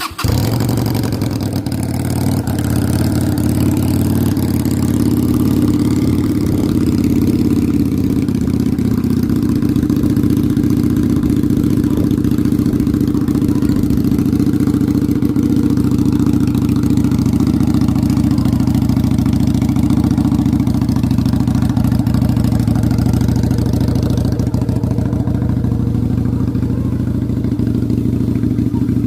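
Victorino 250i motorcycle engine running through a modified aftermarket exhaust: it starts up at the very beginning and settles into a steady, loud idle with a deep exhaust note.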